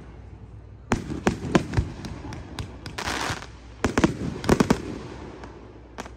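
Fireworks: a string of sharp bangs and crackles from aerial shells bursting about a second in, a short hiss, then another cluster of bangs near four seconds and one last bang near the end.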